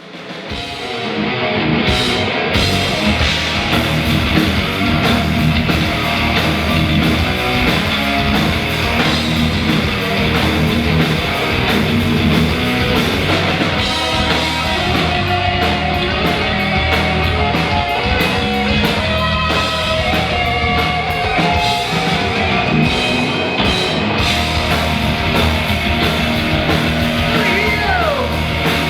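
A rock band playing live and loud, with distorted electric guitars and a steady beat of drums and cymbals. It fades in during the first second.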